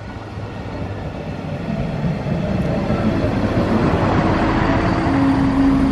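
A class 642 Desiro diesel railcar running, its diesel engine sound growing steadily louder, with a steady whine coming up in the second half.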